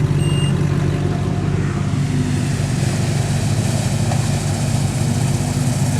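A 4x4's engine idling close by: a steady low drone.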